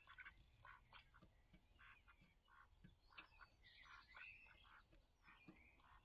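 Faint, rapid run of short duck quacks, a few a second.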